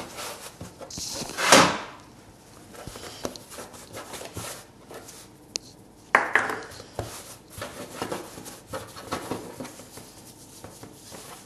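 Hands rolling and pressing soft brioche dough into ropes on a stone countertop: soft rubbing and patting with a few light knocks, a loud brushing swish about a second and a half in, and a short rattle about six seconds in as flour is shaken from a small plastic scoop.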